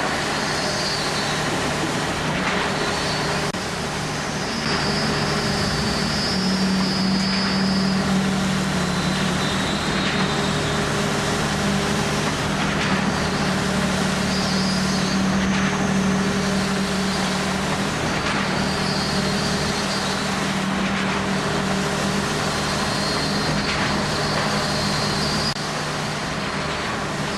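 Heavy engine machinery running steadily, a continuous drone with a low hum. Short high-pitched squeals or chirps come every couple of seconds.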